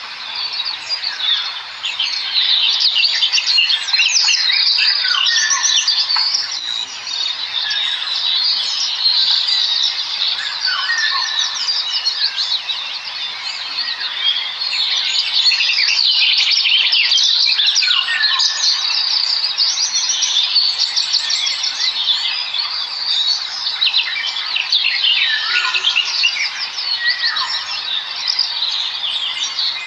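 A flock of small birds chittering and chirping nonstop, many quick high calls overlapping at once.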